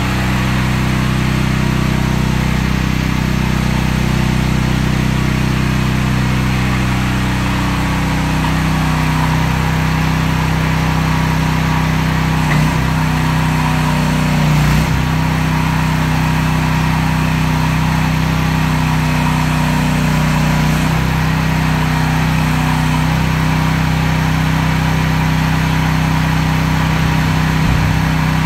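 AGT Industrial QH12R mini excavator's engine running steadily while the boom and bucket are worked. Its note shifts slightly about a quarter of the way in, and there are a few light knocks.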